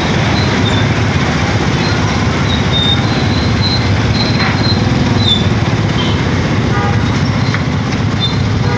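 Small motorcycle engine pulling a tuk-tuk carriage, running steadily at low speed in stop-and-go traffic, with the engine's fast low pulsing close by and the hum of other motorbikes around it. Brief high-pitched chirps come and go throughout.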